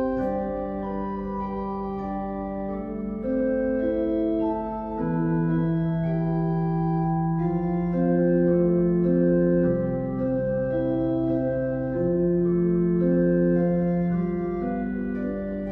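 Organ music: slow, sustained chords over a slowly moving bass line.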